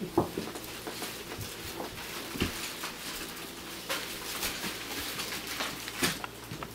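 Children rummaging through filled Christmas stockings: rustling of packages and stocking fabric, with scattered knocks and footsteps on a wooden floor, the sharpest knock right at the start and another about six seconds in.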